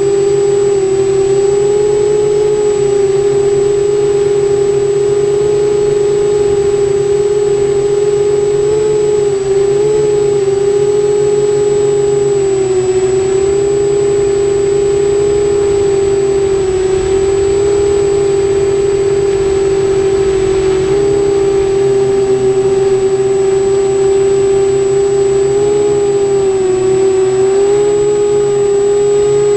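Quadcopter's electric motors and Graupner propellers whining steadily in flight, heard from the onboard camera; the pitch wavers slightly with throttle changes. A thin, steady high whistle runs underneath.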